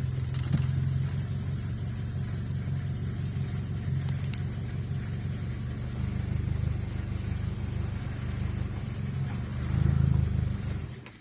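Proton Iswara's four-cylinder petrol engine idling just after a push-button start, its note rising briefly twice, then cutting off abruptly near the end as the engine is switched off.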